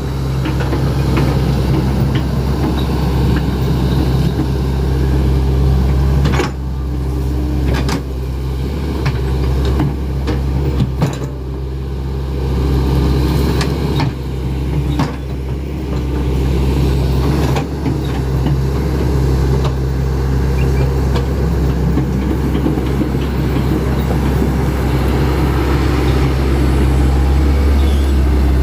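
Hitachi Zaxis 110 excavator's diesel engine running steadily under work, with a few short knocks and clunks from the machine scattered through.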